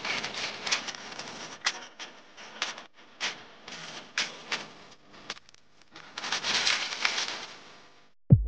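Irregular clicking and crackling with a hiss that swells for a moment about seven seconds in, ending in one short sharp sweep.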